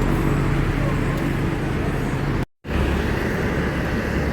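Road traffic and a large vehicle's engine running, a steady rumble with no horn sounding. It is broken by a brief dead silence from an edit cut about two and a half seconds in.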